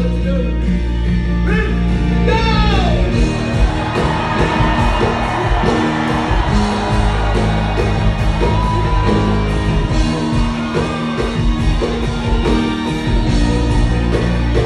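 Live rock band playing loudly, with drums, bass and electric guitar, and singing over it; shouts and whoops from the crowd.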